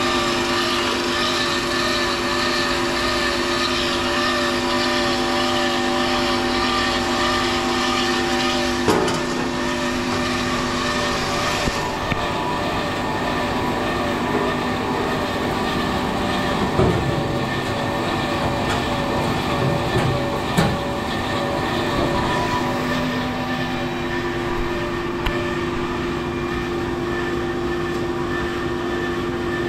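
Peerless vertical band saw running, a steady machine hum with several held tones. The tone mix shifts about a third of the way in, and a few short knocks and clicks sound along the way.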